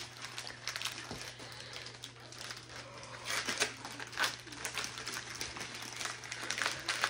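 Shiny foil gift wrapping paper being torn and crinkled by hand: irregular rustling tears and crackles, with the loudest rips a little after the middle.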